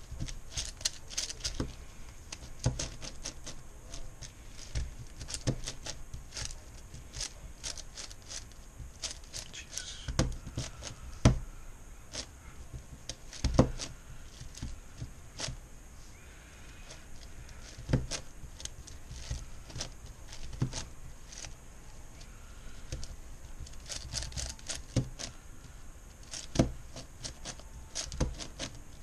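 Plastic layers of a MoYu Meilong 10x10x10 cube clicking and clacking as it is turned one-handed while the centers are built: an uneven run of quick clicks with a few louder clacks.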